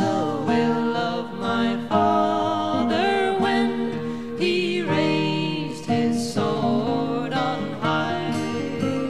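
Folk song: a voice singing long, wavering notes over acoustic guitar.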